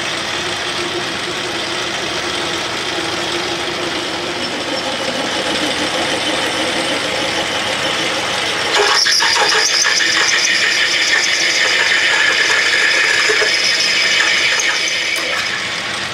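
Metal lathe running with a twist drill in the tailstock chuck cutting through a cast iron workpiece to open up a blind hole. A little over halfway through, it gets louder, with a rough, high cutting noise as a larger drill bites into the iron.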